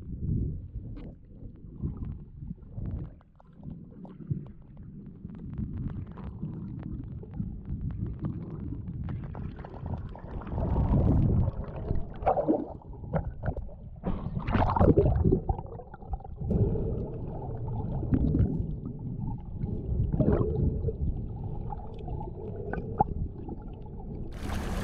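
Muffled underwater sound picked up by a submerged camera: low rumbling water movement with irregular knocks and handling noise as a speared fish is held on the spear.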